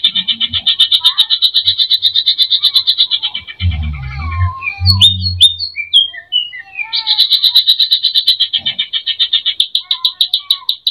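A cucak ijo (green leafbird) singing a fast rattling trill of rapid high notes, about nine a second. Near the middle the trill breaks off for a few seconds of varied whistled notes and a few low thumps, then it resumes.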